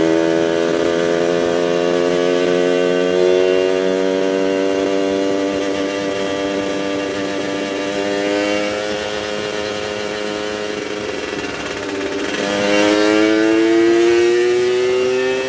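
Yamaha F1ZR 110's two-stroke single-cylinder engine running with its 'ngorok' exhaust growl. The pitch slowly sinks for most of the time, then rises again for the last few seconds as the engine picks up revs.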